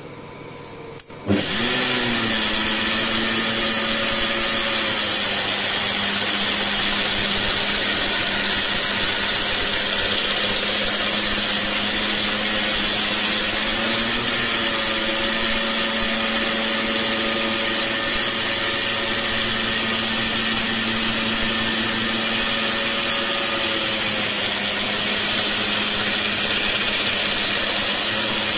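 Belt grinder running, grinding the bevel of a hardened steel knife blade held in a jig against the abrasive belt: a steady motor hum under a loud grinding hiss. It comes in abruptly about a second in and stays steady.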